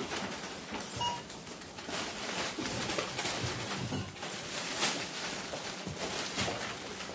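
Supermarket ambience: a steady indoor background din with scattered clatter and knocks, and one short electronic beep about a second in.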